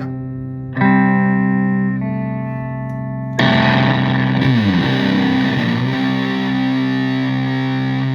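Single-coil Stratocaster through a Tone Bender MKII-style fuzz pedal and a Twin Reverb-style amp, playing fuzzy sustained chords. A new chord is struck about a second in, then a harder, dirtier strum comes about three and a half seconds in, with notes gliding down in pitch before the chord rings out.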